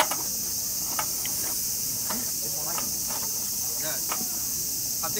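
Steady high-pitched insect chirring, with a sharp click at the start and a few faint short voice sounds.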